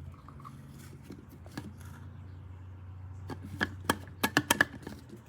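Handling noise from the portable blender's hard plastic parts: a faint low hum, then past the middle a quick run of about a dozen sharp clicks and taps.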